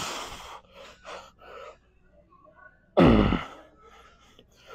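A man's loud effort grunts while lifting weights: one at the start and another about three seconds in, each falling in pitch. Short, quick breaths come between them.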